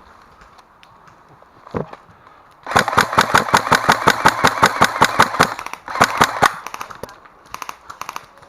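Airsoft electric gun firing on full auto: a long burst of rapid, evenly spaced shots with the gearbox motor whirring, lasting about three seconds, then a shorter burst and a few brief bursts near the end. One dull thud comes before the first burst.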